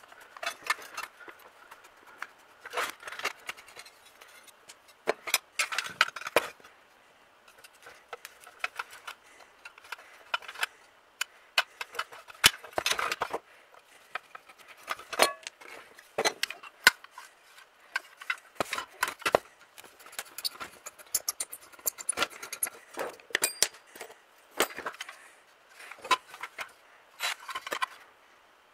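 Small metal parts of a toy tractor clicking, scraping and clattering as they are pried loose with a screwdriver and handled on a workbench, in irregular bursts with short pauses between.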